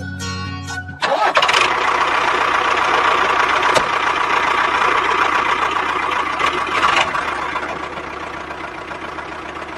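A small motor running steadily with a noisy whir, starting abruptly about a second in as guitar music cuts off, and easing off a little toward the end.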